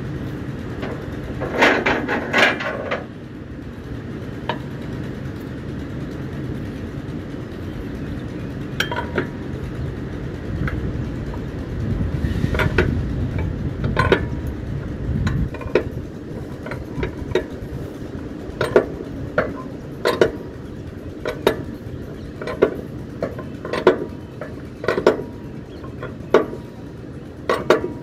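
Sharp metal-on-metal clinks, each ringing briefly. There is a quick cluster about two seconds in, then scattered strikes, then a regular run of about one strike a second through the second half, over a steady low rumble.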